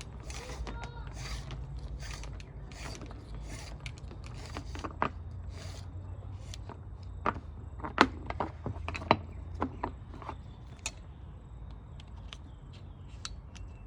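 Lawn mower recoil starter being handled while a new pull cord is threaded and fitted: scattered, irregular clicks and light knocks of plastic and metal parts, the sharpest about eight seconds in, over a steady low hum.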